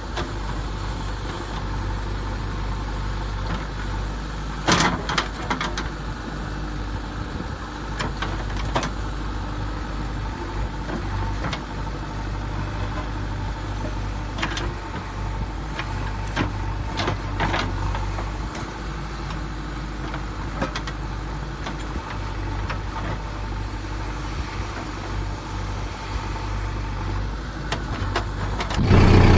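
A steady, low, engine-like idling drone of a toy excavator, with scattered sharp clicks and scrapes as its plastic bucket scoops and tips sand.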